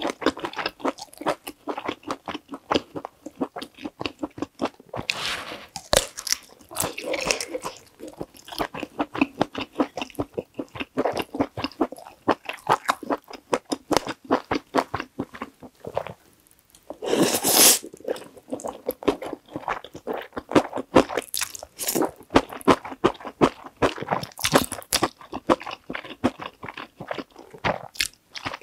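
Close-miked wet chewing of creamy instant stir-fried noodles and sausage: a rapid, continuous run of mouth clicks and smacks. A loud noodle slurp stands out about seventeen seconds in.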